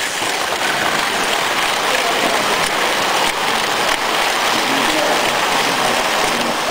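Electric model train running past close by: a steady running noise of its wheels on the rails and its motor, with the murmur of voices behind it.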